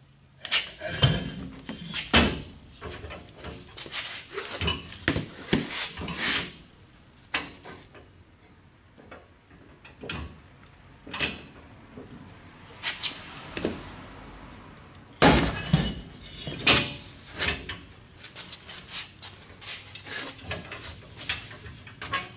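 Homemade tire bead breaker being worked on a small lawnmower tire: a run of irregular metal clunks and knocks as the lever is pushed down and the tire is shifted and turned by hand.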